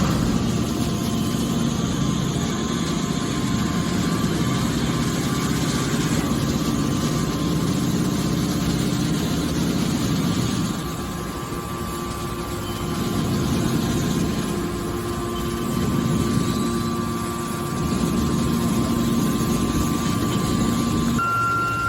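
Horizontal hydraulic metal baler running: a steady machinery drone that dips a little in loudness about halfway through.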